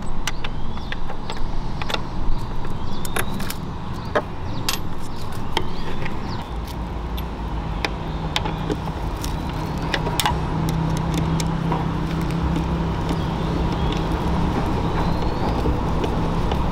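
A motor vehicle driving: a steady low engine and road rumble, with many short sharp clicks and rattles over it.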